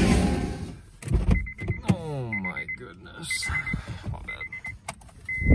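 A loud rushing noise fades out in the first second. Then a high electronic beeper sounds quick groups of four beeps about once a second, four times over, followed by one longer beep.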